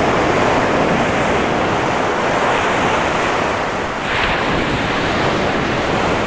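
Surf washing on the beach with wind buffeting the microphone, a steady rush with one wave surging a little louder about four seconds in.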